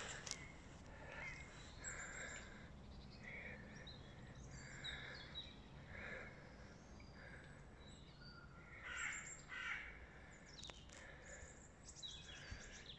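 Faint bird calls: a series of short, harsh calls, with a few thinner, higher chirps among them.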